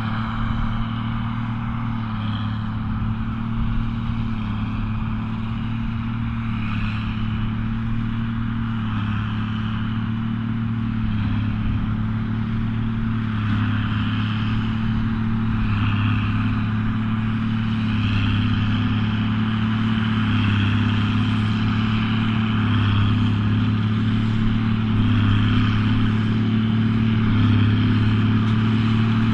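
Case 2294 tractor's six-cylinder diesel engine running steadily under load while pulling a Massey Ferguson 190 big baler, with the baler's machinery whirring along. The engine's deep hum holds an even pitch and grows slightly louder toward the end.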